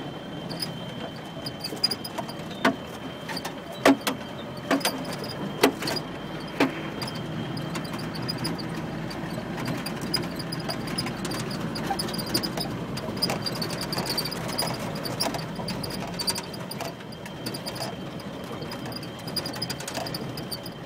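Old four-wheel-drive vehicle running over a rough dirt road, heard from inside the cabin: a steady engine-and-road drone, with several sharp knocks and rattles of the body over bumps between about two and seven seconds in.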